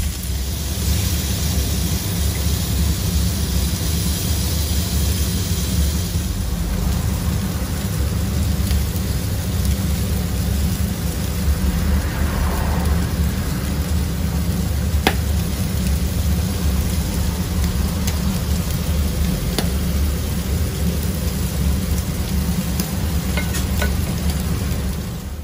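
Pork barbecue skewers sizzling on a wire grill over a portable gas burner, a steady hiss with a few sharp ticks, over a constant low rumble.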